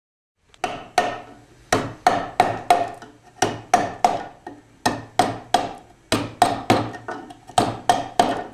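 Mallet and chisel cutting into wood: sharp knocks, about three a second in short runs, each with a brief ring.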